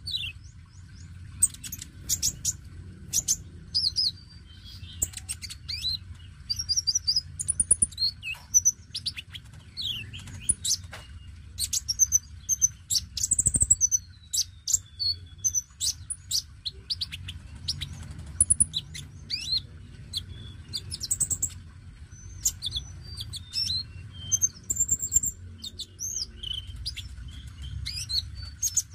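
Male Van Hasselt's sunbird (kolibri ninja, 'konin') singing steadily: rapid runs of thin, high-pitched chirps, short trills and quick falling notes.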